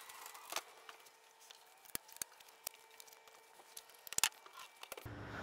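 Steel frame and latches of a rolling, folding CNC stand being handled as it is unfolded: faint scattered clicks and knocks, with two sharper clicks about four seconds in.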